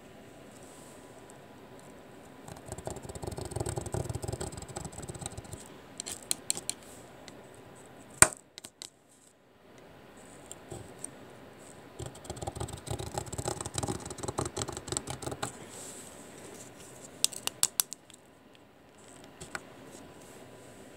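Hot soldering iron tip scraping along the gold-plated edge-connector fingers of a RAM module in two rapid scratchy stretches of a few seconds each, the heat loosening the glue so the gold fingers lift off. Scattered clicks and one sharp tap come in between.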